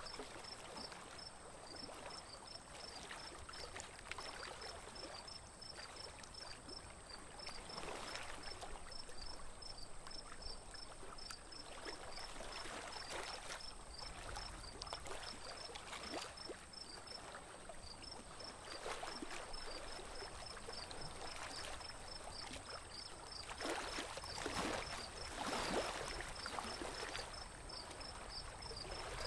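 Water splashing and trickling against a small wooden boat as it moves through a lily-covered lake, with bare feet trailing in the water. The splashing comes and goes and is loudest a few seconds before the end.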